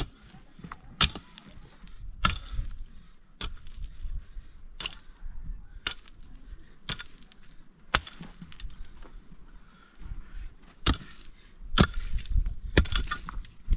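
Repeated sharp blows of a hand tool striking hard material, about one a second and unevenly spaced. Near the end they come closer together and louder.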